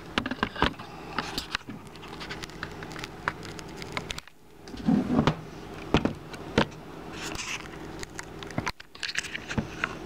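A steady low electrical hum, with clicks and knocks as a ceramic cup and the espresso machine are handled and set in place. A louder cluster of knocks comes about five seconds in.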